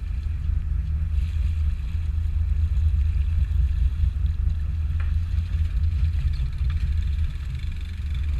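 Steady low rumble of a fishing charter boat's engine running under way, with a faint light click about five seconds in.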